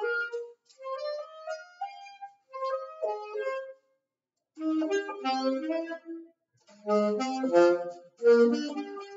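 Alto saxophone played unaccompanied: quick runs of separate notes, a rising run in the first two seconds, broken by two short rests.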